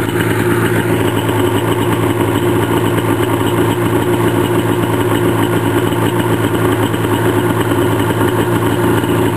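Freshly rebuilt two-stroke engine of a Polaris TX-L 440 snowmobile idling steadily with the hood open, through its expansion-chamber exhaust.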